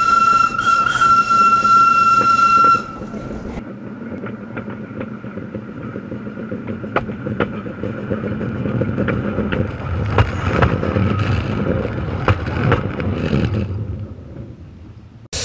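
Steam locomotive whistle sounding one long steady note that stops about three seconds in, then a passing train rumbling over the rails with many sharp wheel clicks, swelling and then fading away.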